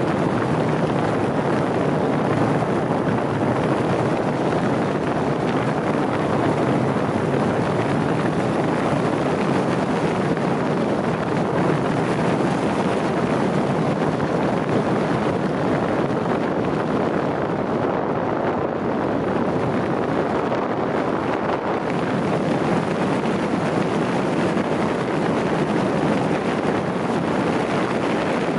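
Steady wind rush on the microphone and tyre noise from a vehicle driving along smooth new asphalt at speed, with no distinct engine note.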